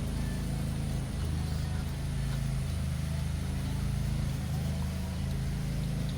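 A steady low engine hum, as of a motor running at idle.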